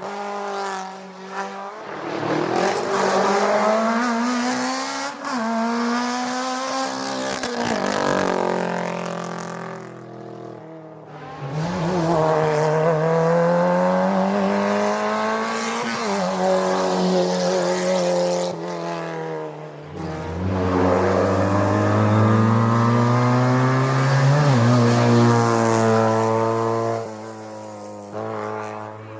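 Historic racing car engines at full throttle on a hillclimb, revving up through the gears. The pitch climbs and drops sharply at each upshift, in three separate loud runs.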